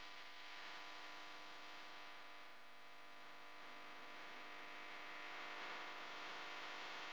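Faint steady hiss with a low electrical hum: room tone, with no distinct handling sounds.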